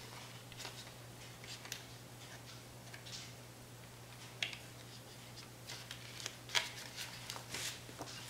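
Fingers pressing the buttons and tapping the touchscreen of a Zohulu 4K camcorder: faint, irregular clicks and taps, the loudest about halfway through and again near the end, over a steady low hum.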